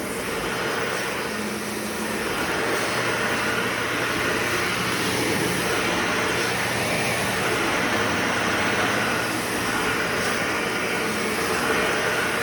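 Bagless vacuum cleaner running steadily, its motor giving a continuous whirring hum.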